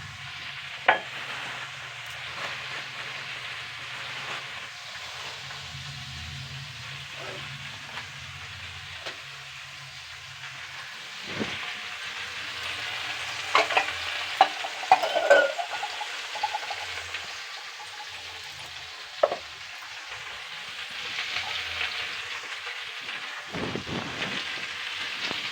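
Cauliflower sizzling as it fries in oil in a pan, with a steady hiss. A spatula knocks and scrapes against the pan as it is stirred, a few strikes near the start, a cluster about midway and one more a few seconds later.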